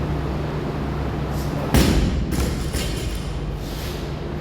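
A loaded Olympic barbell, about 102 kg with Xenios plates, is dropped onto the floor with one heavy thud about two seconds in, followed by a few weaker rattles as the plates bounce and settle. A steady low hum runs underneath.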